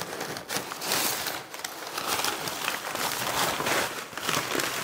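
Brown packing paper crinkling and rustling as it is handled and pulled out of a cardboard shipping box, in a continuous crackle of many small crunches.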